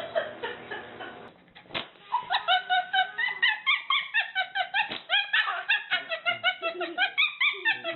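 An animal's rapid run of short, high-pitched yips, each rising and falling in pitch, about five a second, starting a couple of seconds in.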